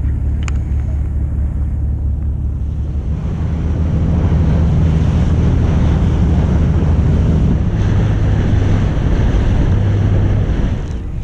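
Fishing boat's engine running low, then picking up about three seconds in, with wind buffeting the microphone and water rushing past; it eases off again near the end.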